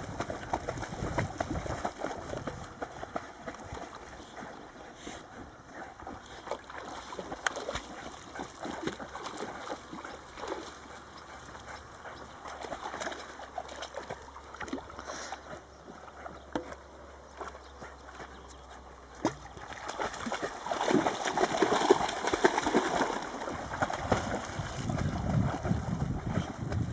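Water splashing and sloshing as dogs swim, getting louder about twenty seconds in.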